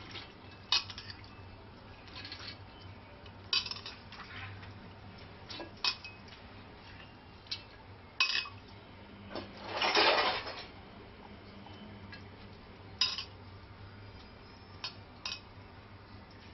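Soaked chana dal (split Bengal gram) dropped by the handful into a metal pressure cooker, with scattered clinks and knocks against the metal and a longer rushing pour about ten seconds in.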